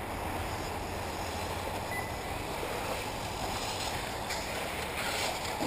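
1/8-scale electric RC off-road buggies running on a dirt track: a steady hiss of motors and tyres, with a couple of brief louder rasps about four and five seconds in.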